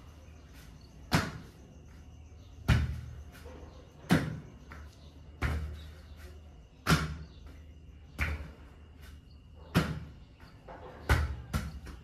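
A light plastic ball tossed back and forth between two people, a sharp ball smack about every second and a half, eight in all, each with a short echo.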